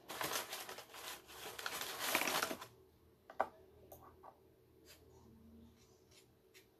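Plastic and foil wrappers rustling and crinkling for about two and a half seconds as things are moved around on the table, then one sharp click and a few faint taps.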